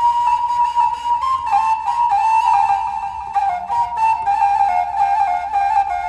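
Background music: a single wind-instrument melody over a light, steady beat.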